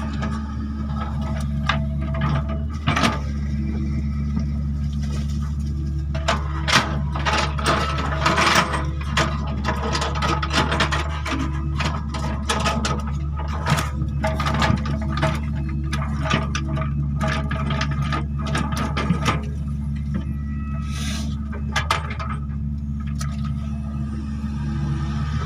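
Hydraulic excavator working: the diesel engine runs steadily under a stream of sharp clanks and knocks from the machine's tracks and attachment, thickest in the middle of the stretch.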